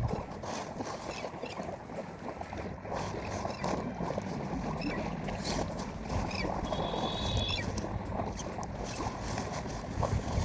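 Heavy rain and a fast-flowing river making a steady wash of water noise, with scattered drop taps. A brief high tone is heard about seven seconds in.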